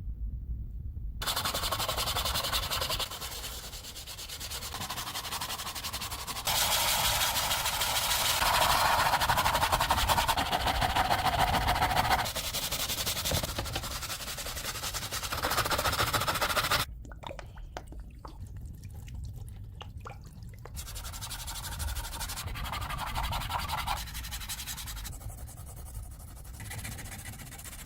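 Abrasive sanding and rubbing on the heater's rusted parts, in a series of short cut-together clips. Each clip is a steady scratchy noise that starts and stops abruptly, some louder than others.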